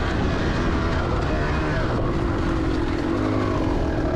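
2004 Kawasaki KX250's single-cylinder two-stroke engine running while ridden, its pitch held fairly steady at moderate revs.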